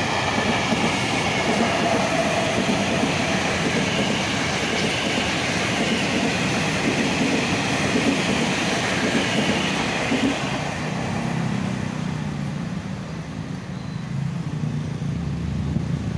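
KRL Commuter Line electric multiple-unit train passing close by, a steady loud rush of wheel and running noise. The noise eases from about ten seconds in as the last cars go by.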